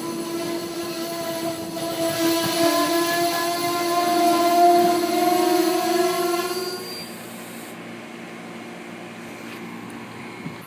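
Amtrak Northeast Regional Amfleet passenger cars rolling past at close range, with a steady whine carried over the rumble of the wheels. The whine and most of the noise stop about seven seconds in, leaving a quieter hum.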